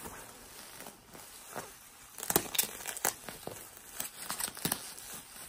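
Packaging being handled and unwrapped: rustling that turns into a run of sharp crinkling crackles from about two seconds in.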